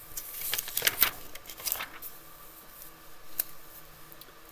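Paper rustling and sliding as a printed worksheet is pushed across a desk by hand, a quick cluster of scrapes and crinkles in the first two seconds, loudest about a second in, with one more short click a little after three seconds.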